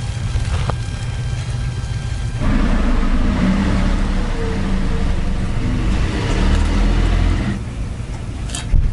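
A car passing, swelling about two and a half seconds in and fading near the end, over a steady low rumble, with a short sharp sound just before the end.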